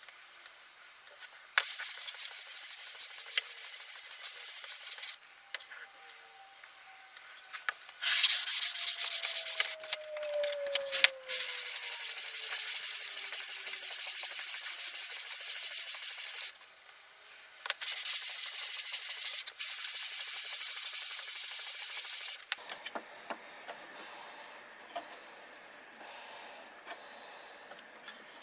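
Cast iron sole of a Stanley Bailey No.5 hand plane being rubbed back and forth on sandpaper to lap it flat: a steady scratchy hiss in spells of a few seconds, broken by short pauses and quieter near the end.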